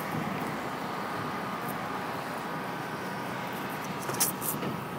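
Steady outdoor background noise with a faint steady hum. A couple of short clicks come about four seconds in.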